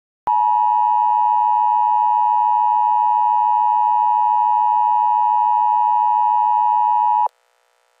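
Emergency alert attention tone: one loud, steady pitch just under 1 kHz with fainter overtones. It begins a moment in, holds for about seven seconds and cuts off suddenly.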